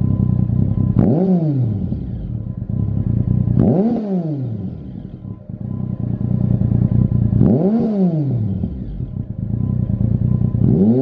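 Triumph Tiger 1050's inline three-cylinder engine idling through a Lextek SP1 aftermarket silencer, blipped three times: each rev rises quickly and falls straight back to idle. Near the end the revs rise again.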